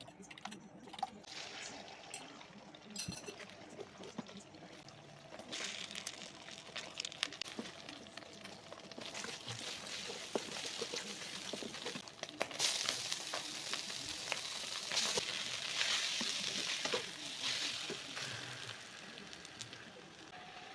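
Dry sukiyaki stir-frying in a pan: a sizzling hiss with clicks and scrapes from stirring, which grows louder partway through and eases off near the end.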